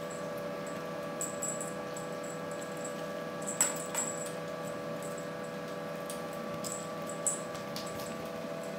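Steady mechanical hum in the room, with a few light clicks and taps as a kitten moves about on a carpeted cat tree, the sharpest about three and a half seconds in.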